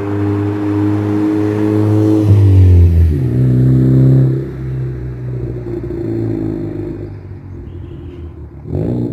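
Ford Focus ST250's turbocharged 2.0-litre four-cylinder with a custom exhaust, driving past loudly. The exhaust note swells to its loudest and drops in pitch as the car goes by, about two to three seconds in, then fades away. A brief rising sound cuts in near the end.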